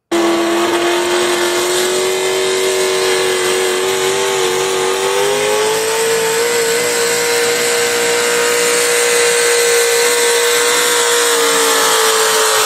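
Pickup pulling truck's engine running at high revs under load as it drags a pulling sled down the track. Its steady pitch rises a little about halfway through, then holds.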